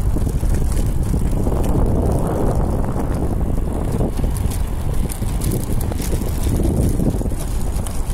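Recumbent trike rolling along coarse asphalt: a steady low rumble of tyres on the road mixed with wind buffeting the microphone, with a few faint ticks.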